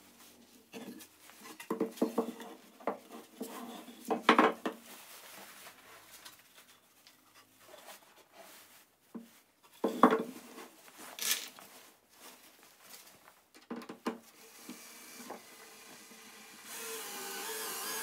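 Wooden boards handled on a workbench: scattered knocks and scraping of wood on wood, the loudest about four and ten seconds in. Near the end a cordless drill runs steadily for about a second and a half, driving a screw into the wood.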